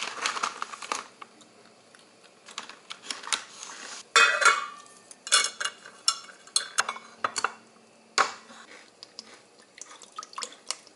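Kitchen handling noises as dishes, a sauce bottle and a bamboo soba mat are set out on a counter: a string of clicks and knocks, loudest about four seconds in, with another sharp knock about eight seconds in.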